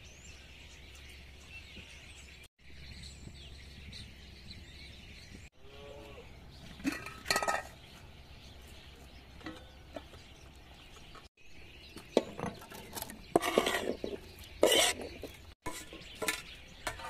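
Cookware clinking and clanking: a metal lid handled over a steel cooking pot. There are a few sharp clinks about seven seconds in, then a busier run of ringing clanks in the last third.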